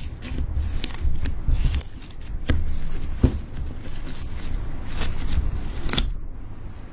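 Hands folding and squeezing clear slime mixed with loose glitter: irregular sticky clicks and pops over a low thudding of the slime being pressed against the board.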